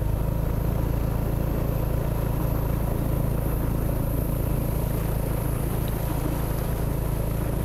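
Motor scooter engine running steadily while riding through shallow floodwater, with an even hiss of the tyres cutting through the water.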